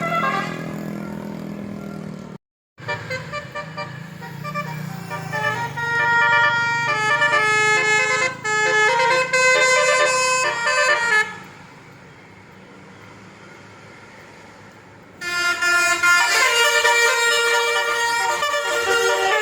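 Bus's multi-tone telolet basuri musical horn playing a tune of short pitched notes over a low engine rumble. The sound drops out for a moment near the start. About halfway through the horn stops for a few seconds, leaving only the engine rumble, then starts playing again.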